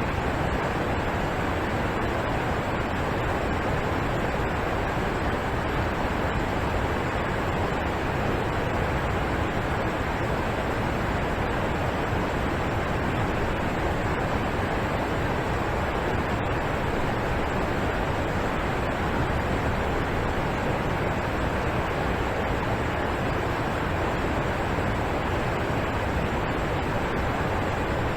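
Waterfall rushing steadily, an even roar of falling water with no change.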